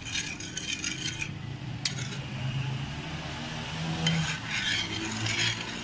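A metal spoon stirring sugar into water in a stainless steel saucepan, scraping against the pan bottom to dissolve the sugar. The scraping comes in two stretches, at the start and again from about four seconds in, with a single click about two seconds in.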